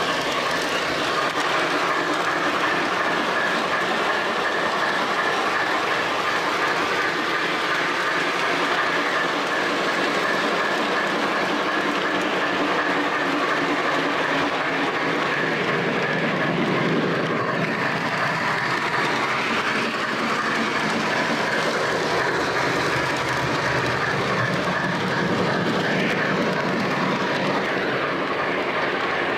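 O gauge three-rail model train running steadily, heard up close from a car riding in the train: the continuous rolling rumble of its wheels on the track, with a faint steady whine above it.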